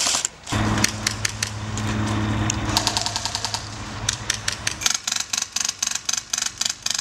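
Airsoft guns firing: a steady low hum under a run of sharp clicking shots, then an even string of rapid shots at about six a second that stops near the end.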